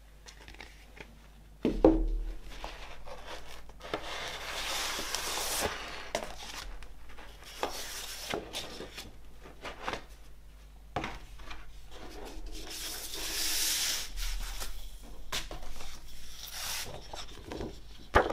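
Cardboard record sleeve and glossy printed insert being slid and rubbed against each other and the wooden tabletop, with two longer stretches of rustling. A few sharp knocks come through, the loudest about two seconds in and another just at the end.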